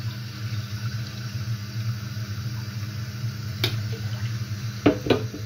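Water sloshing and trickling in a metal saucepan over a stainless kitchen sink, over a steady low hum; the pan knocks against the sink once past the middle and twice in quick succession near the end.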